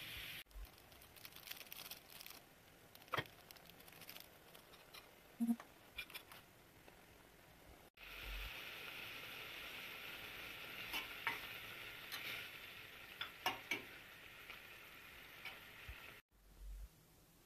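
Maggi instant noodles bubbling in boiling water in a metal pot: a steady hiss, with scattered sharp clicks and taps of a utensil stirring against the pot. The sound breaks off suddenly a few times.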